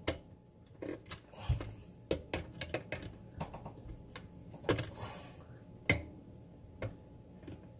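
Needle-nose pliers clicking and tapping against a bare ground wire and the metal base of a garbage disposal while a loop is bent in the wire. It is an irregular run of sharp metallic clicks with some hand rustling, the sharpest clicks coming right at the start and about six seconds in.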